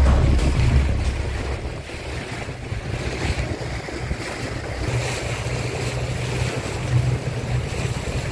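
Motorboat under way on open water: wind buffeting the microphone over the rush of water past the hull and a low hum. Louder background music fades out over the first second or two.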